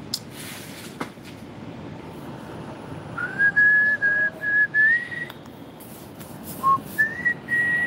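A person whistling a tune: a string of held notes that step up in pitch from about three seconds in, a short lower note, then high notes again near the end.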